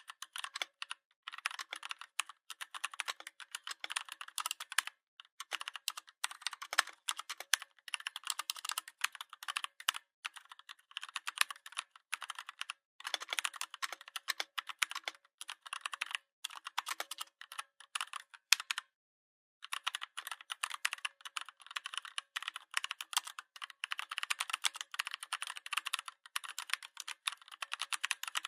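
Typing on a Redragon 61-key mechanical keyboard: rapid key clicks in continuous flurries, with a pause of about a second roughly two-thirds of the way in.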